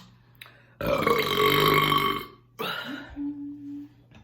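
A woman's long, loud burp, about a second and a half, brought up by a chugged 20-ounce bottle of carbonated cherry vanilla Coca-Cola. A shorter, softer voice sound and a brief hum follow it.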